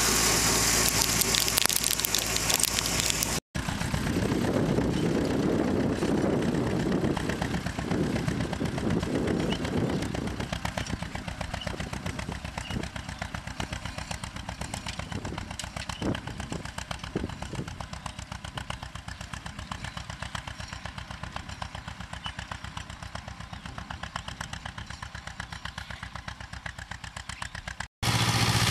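Farm tractor diesel engines running in the field, in cut-together clips. A short close pass of a tractor with a fertilizer spreader is followed by a long stretch of a tractor pulling a precision planter, its engine firing steadily and growing quieter from about ten seconds in.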